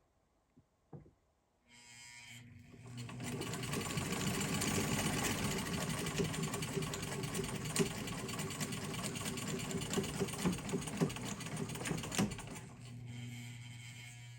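Sewing machine stitching a fabric strip. After a couple of small clicks, the motor starts about two seconds in and speeds up to steady fast stitching with rapid ticking. Near the end it slows to a lower hum.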